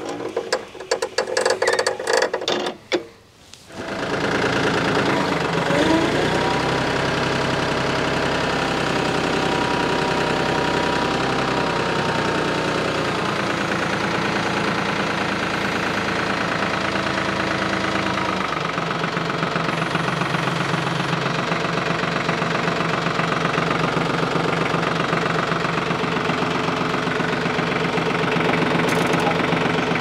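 For about the first three seconds the sawmill's small gasoline engine runs with a fast, even clatter, then cuts off. After that a compact tractor's diesel engine runs steadily as its front loader carries a log, and its note shifts about 18 seconds in.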